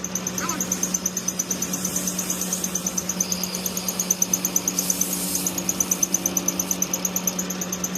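A steady low machine hum with a rapid, regular high-pitched chirping pulse, about eight a second.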